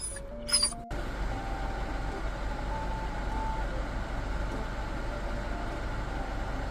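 Steady rumble of a moving car heard from inside the cabin, with faint background music over it. The rumble starts abruptly about a second in, after a few music notes.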